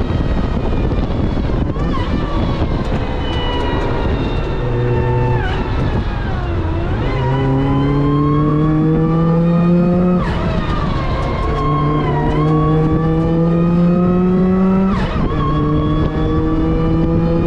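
Supercharged Mazda MX-5 NB's four-cylinder engine accelerating hard under full throttle. Its pitch climbs steadily through each gear, with a sharp drop at each upshift about 10 and 15 seconds in.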